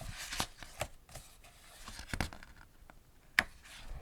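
A picture book's page being turned: paper rustling and light handling noises, with one sharp click about three and a half seconds in.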